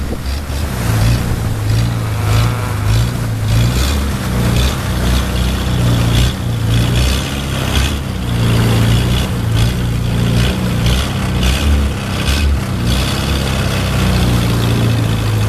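Longtail boat engine running steadily as the boat travels, a deep continuous drone with a hiss of wind and water over it.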